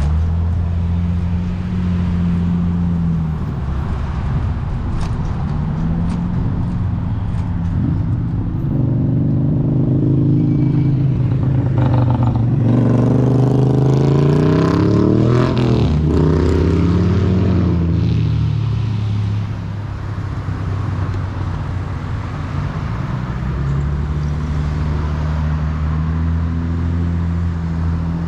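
Road traffic: motor vehicle engines running steadily, with vehicles accelerating and passing through the middle of the stretch, their pitch rising and then falling.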